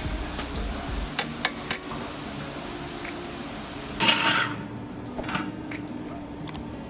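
Metal parts being handled and knocked together: three sharp clinks in quick succession about a second in, then a short scrape of metal about four seconds in, with scattered light taps.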